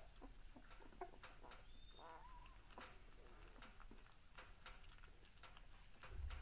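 Faint, high squeaks and small clicks and snuffles from a litter of two-week-old Dalmatian puppies as they sleep, with a wavering squeak about two seconds in. A low rumble comes in near the end.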